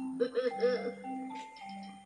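Cartoon soundtrack music playing from a television's speaker: held notes under short, quick struck notes, growing quieter near the end.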